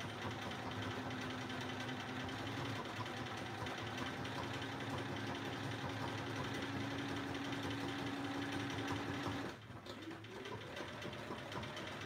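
Sewing machine stitching steadily at speed while free-motion quilting through the layers of a quilt. About nine and a half seconds in it slows sharply, runs on more slowly, and winds down near the end.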